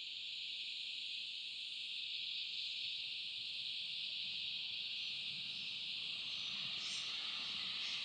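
Steady, high-pitched insect chorus in the rainforest. From about five seconds in, the faint sound of a distant NSWGR 620/720 class diesel railcar approaching rises underneath it.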